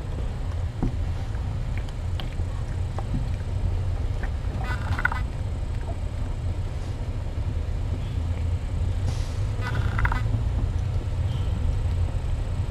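Nursing kittens squeaking twice, briefly, about five and ten seconds in, over a steady low rumble that fits the mother cat purring.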